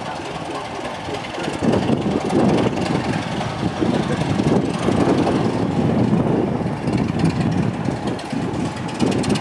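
Diesel locomotive's engine running under power as it hauls a passenger train towards the platform. It grows louder about a second and a half in, then holds a heavy, pulsing drone.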